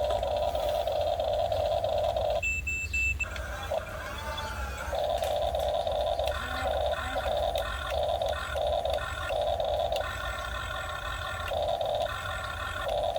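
Small electric motors of a Huina 1550 RC excavator whining. The whine runs steadily at first, then cuts in and out in quick short bursts as the controls are worked. A brief high beep sounds between them.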